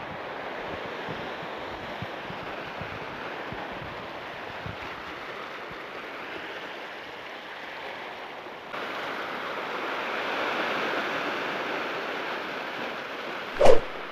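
Ocean surf breaking and washing over shoreline rocks, a steady rush of water that steps up louder about two-thirds of the way through. A single brief, sharp thump near the end is the loudest sound.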